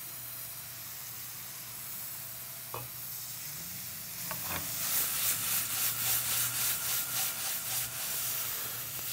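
Vegetables sizzling in oil in a skillet on a portable gas burner. About halfway through the sizzle grows louder and pulses in a quick, even rhythm as the pan is shaken over the flame.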